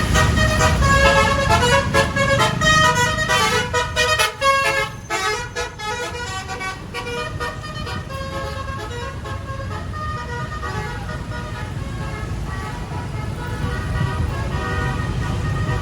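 Bus telolet basuri horn playing a quick tune of short stepping notes over a low rumble. The tune is loudest in the first six seconds, then goes on more quietly.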